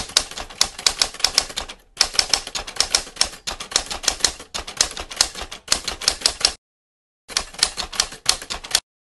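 Typewriter sound effect: rapid runs of key clacks that keep time with text being typed onto the screen. It breaks off briefly about two seconds in, pauses for most of a second near the end, then stops.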